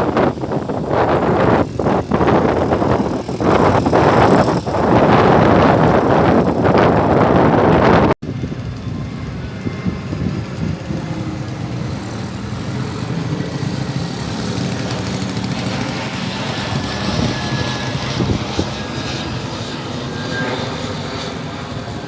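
Strong wind buffeting the microphone for about the first eight seconds. After a sudden cut, a quieter, steady airplane engine drone as a plane passes low on its approach to land.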